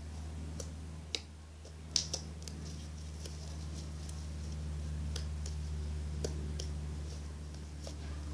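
Fluffy slime being kneaded and stretched by hand, making scattered small sticky clicks and pops, the sharpest about one and two seconds in, over a steady low hum.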